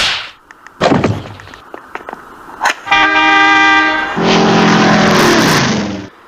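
A string of film and cartoon sound effects: a sharp hit, a falling swoosh about a second in, then a loud horn honk about three seconds in, followed by a louder noisy blast that cuts off suddenly near the end.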